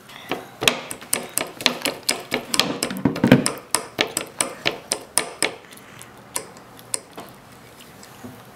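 A fork banging and tapping on a plastic plate and a wooden tabletop: a quick irregular run of sharp knocks, three or four a second, that thins out near the end.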